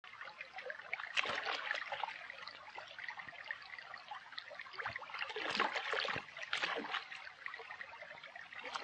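Shallow running water trickling and dripping, with many small, irregular splashes.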